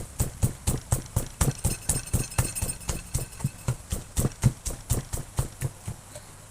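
A pestle pounding grilled peppers in a plastic mortar, in quick, regular strokes of about four a second that stop about six seconds in.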